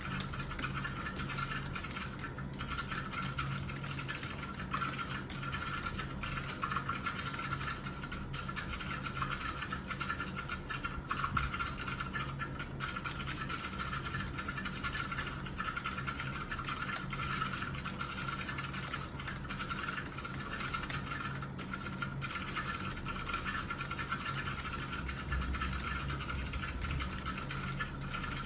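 Continuous fast typing on a computer keyboard: a dense, unbroken stream of key clicks, over a steady low hum.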